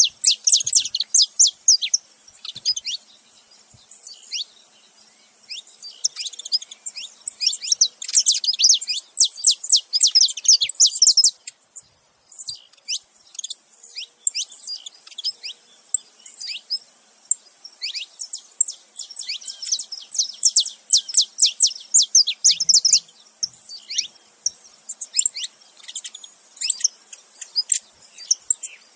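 Saffron finches chirping: rapid runs of quick, high, falling notes, with the densest runs lasting several seconds and broken by short pauses.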